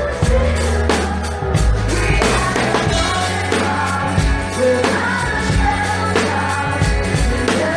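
Live rock band playing, with drums keeping a steady beat under a woman singing lead.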